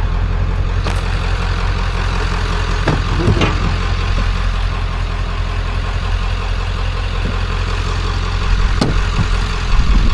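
A vehicle engine running with a steady low rumble, with a few light clicks and knocks of items being handled. The rumble grows louder near the end.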